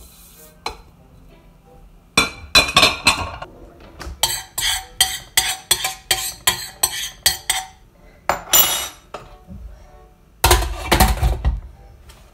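Metal kitchenware clattering against a large stainless steel cooking pot. A cluster of clanks comes about two seconds in, then about a dozen even clinks at roughly three a second. Two rougher clattering bursts follow near the end.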